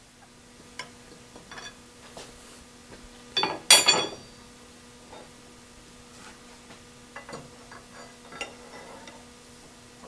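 Small metal clicks and taps as a steel axle is handled in a milling-machine vise, with one louder ringing metallic clink about three and a half seconds in. A faint steady hum runs underneath.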